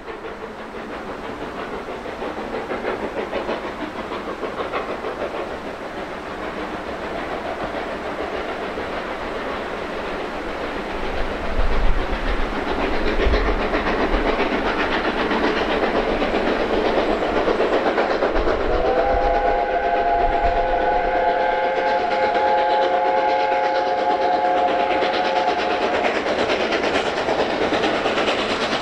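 USATC S160 steam locomotive hauling a train, its running noise on the rails growing louder as it approaches. Partway through, a chime steam whistle sounds one long chord of about six seconds.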